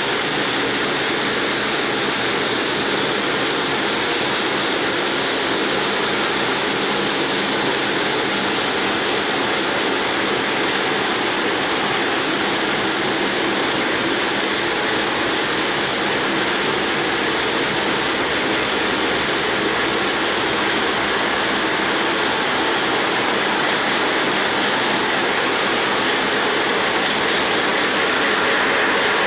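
Multi-blade granite block cutter sawing through a granite block: a steady hiss of the water-cooled circular blades grinding stone, mixed with the spray of cooling water.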